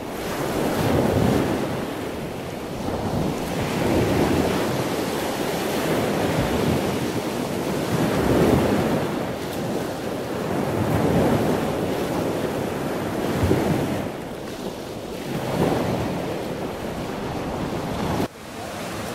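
Ocean surf: waves breaking and washing ashore, swelling and easing every two to three seconds, with wind blowing on the microphone. The sound changes suddenly near the end.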